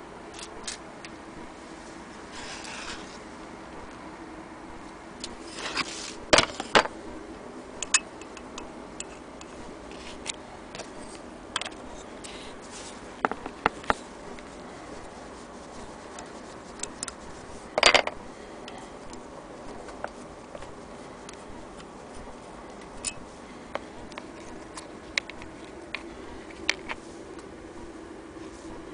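Scattered clicks, taps and scrapes of a screwdriver and small metal parts as the crank handle is unscrewed from the cast-iron handwheel of a Willcox & Gibbs hand-crank sewing machine. The loudest knocks come about six and eighteen seconds in.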